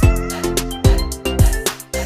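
Background instrumental music with a steady drum beat and sustained keyboard-like notes.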